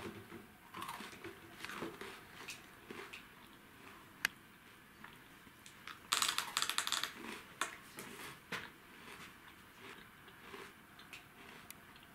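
Handling and eating snacks: scattered small clicks and rustles of packaging, with a loud burst of crinkling and crackling about six seconds in.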